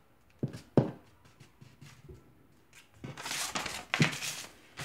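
Paper rustling as the pages of a printed instruction manual are handled and turned, with two sharp taps near the start and a longer rustle about three seconds in.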